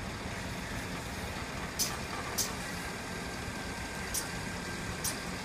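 Heavy-haulage truck's diesel engine running low and steady as it slowly moves a low-loader trailer. Four short, sharp hisses come over it, two around the middle and two near the end.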